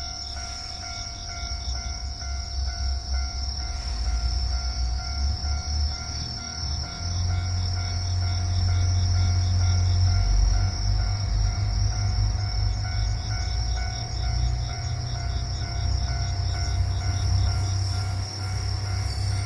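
Level crossing warning bell ringing in a steady repeating pattern. From about seven seconds in, the low rumble of a diesel railcar's engine builds underneath it as the railcar comes through the crossing.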